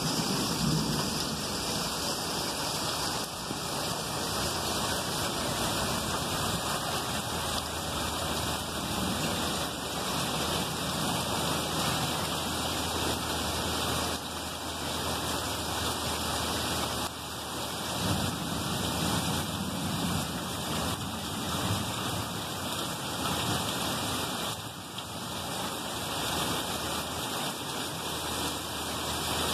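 Heavy thunderstorm rain pouring steadily, with low rumbles of thunder at the start and again a little past the middle.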